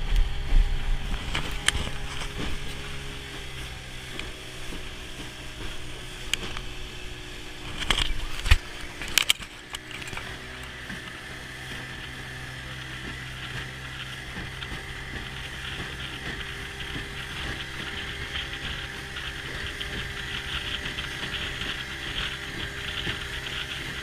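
A boat's motor running steadily, with sea and wind noise over it. Several sharp knocks come in the first ten seconds, two close together about eight seconds in.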